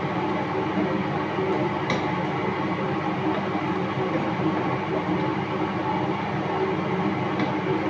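Kitchen range hood fan running steadily, with a couple of faint taps of a wooden spatula in the frying pan.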